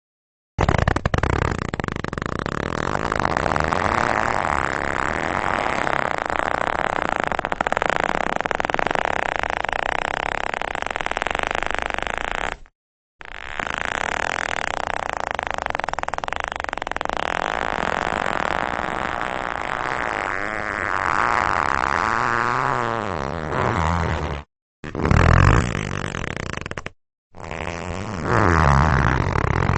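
Stiff leather creaking and squeaking hard under strain, the sound of a squeaky leather chair. Two long, drawn-out creaks of about twelve and eleven seconds, the pitch wavering in the second, then two shorter creaks of a couple of seconds each near the end.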